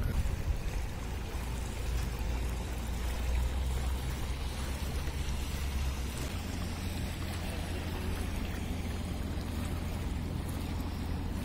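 Wind and water noise aboard a sailing yacht under way, over a steady low rumble; the sound shifts about six seconds in.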